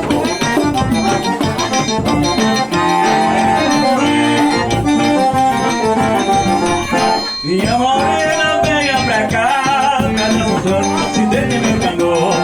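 Accordion playing northeastern Brazilian sanfona music. About seven seconds in it drops out briefly, then comes back with a run of notes that bend up and down in pitch.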